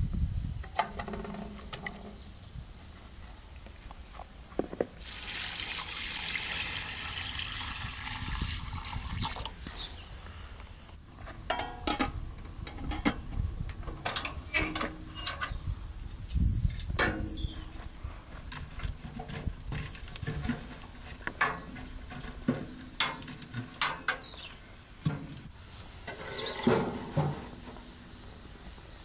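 Water poured or running for about five seconds, then scattered knocks and clinks of cooking work, with a few brief high chirps.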